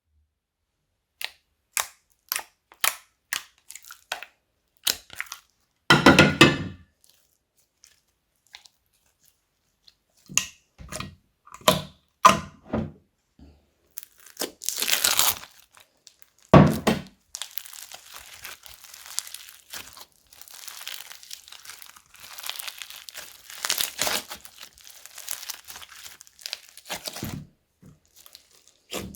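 Slime being pressed, stretched and mixed by hand: a run of sharp pops and clicks, two heavier presses about six and sixteen seconds in, then near-continuous crackling.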